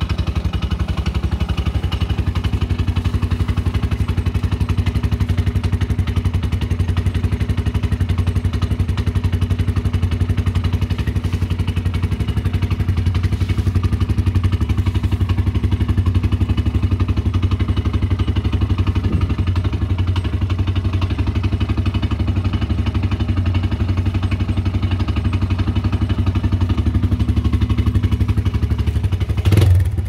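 Polaris Outlaw 90 quad's small single-cylinder engine idling steadily, with an even low putter.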